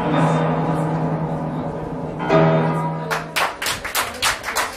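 Upright piano playing, with a final chord struck about two seconds in and left to ring out. Hand clapping starts about three seconds in as the piece ends.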